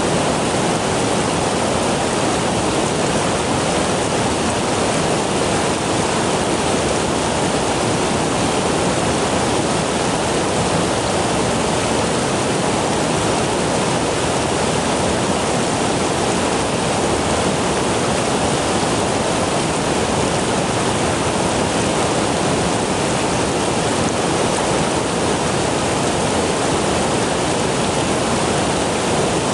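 Steady, loud rush of flowing river water.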